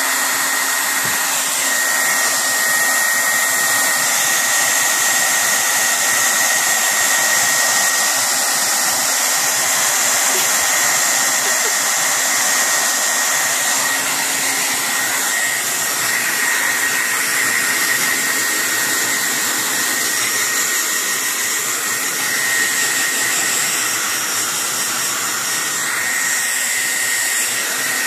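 Hair dryer running steadily, a constant airy rush with a thin high whine.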